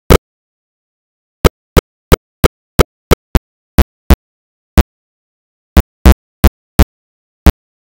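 Dead digital silence broken by about sixteen short, loud crackling bursts at irregular intervals, the signs of a damaged audio track breaking up into dropouts and glitches.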